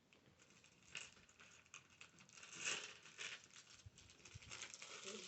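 Faint rustling and small plastic clicks of Lego bricks being handled and pressed together.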